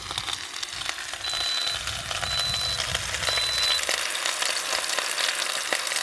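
Chuck roast searing in melted ghee in an Instant Pot on sauté, a steady sizzle with crackling spits. In the first half, three short high electronic beeps sound about a second apart.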